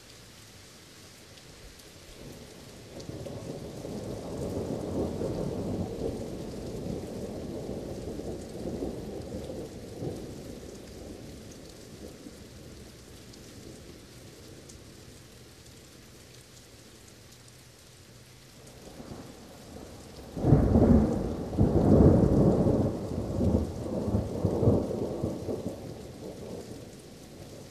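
Steady rain with two peals of thunder: a low rolling rumble that swells a few seconds in and dies away by the middle, then a sudden, louder clap about two-thirds of the way through that crackles and rolls for several seconds before fading.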